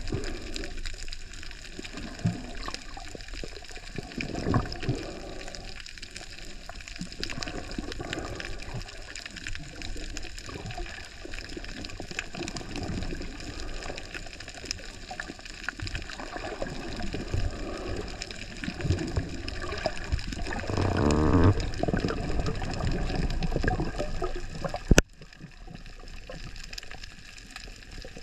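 Water noise picked up by a camera underwater: uneven muffled sloshing and gurgling. About three-quarters through there is a louder stretch of rapid pulsing. Near the end a single sharp click comes, after which the sound is quieter.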